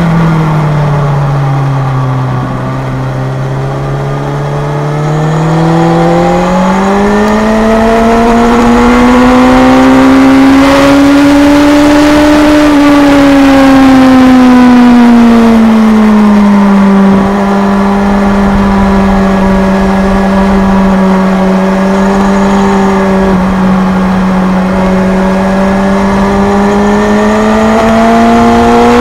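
Kawasaki Z1000's inline-four engine pulling at track speed, heard from a camera mounted on the bike. The note drops at first, climbs smoothly to a peak about twelve seconds in, falls back and holds steady, then rises again near the end.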